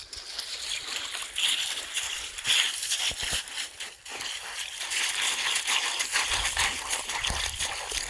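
Border Collie puppy pawing and digging at a shallow muddy puddle in wet gravel: repeated splashes and sloshes of water with gritty scrapes of paws on stones.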